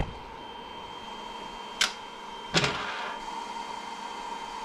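Steady hum with a faint high whine from a 3D printer just after a print, broken by a sharp click a little under two seconds in and a louder clack about a second later as the printed part is handled on the build plate.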